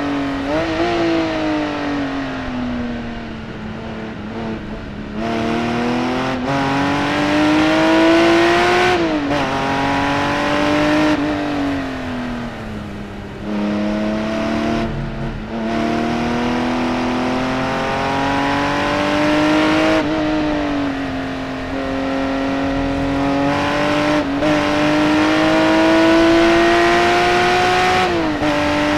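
Singer Porsche 911 DLS's naturally aspirated 4.0-litre flat-six, heard from on board at racing speed. The revs climb in long rising pulls and fall back sharply several times as the car is driven hard through the gears and corners.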